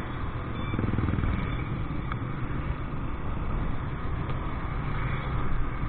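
Motorcycle running along the road, a steady engine and wind rumble, swelling slightly about a second in.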